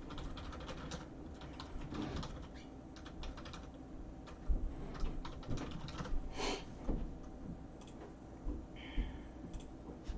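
Scattered light clicks and taps of hands at work, with a short high-pitched tone about nine seconds in.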